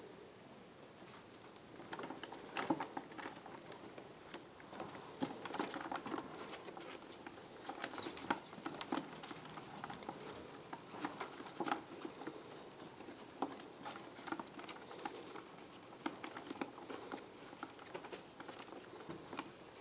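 Irregular light rustling and pattering in wood-shaving bedding as small pet rodents scurry about and a hand moves among them, growing busier about two seconds in.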